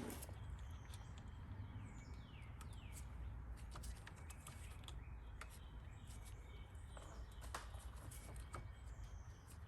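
Faint birds chirping outdoors: short falling whistles repeated every second or so, with scattered light clicks over a low steady hum.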